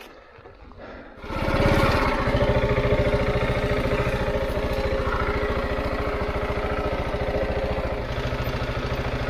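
Husqvarna 701's single-cylinder four-stroke engine starting about a second in, then running steadily at idle with an even, fast firing rhythm.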